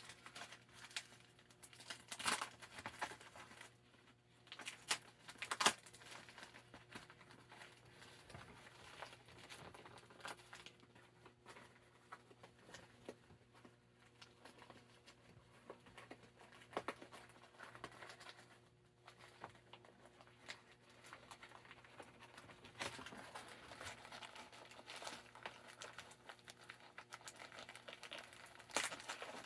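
Packaging being opened by hand: crinkling, rustling and tearing, with scattered sharp crackles and taps, fairly faint.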